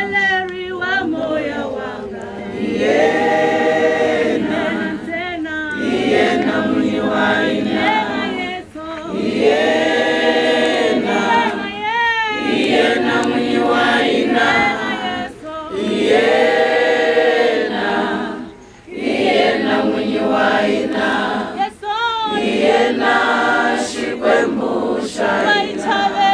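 A crowd singing a hymn together without accompaniment, in long held phrases with short breaks for breath between them.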